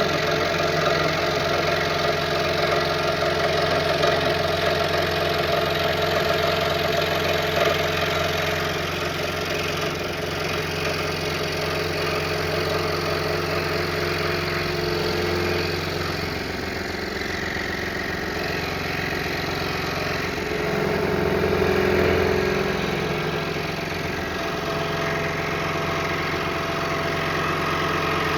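Scroll saw running steadily, its reciprocating blade cutting through a stack of maple, cherry and walnut panels; the tone shifts a little about two-thirds of the way through.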